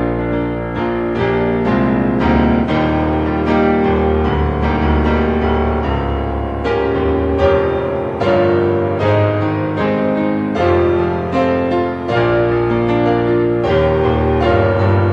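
Background piano music, a steady flow of sustained chords and notes.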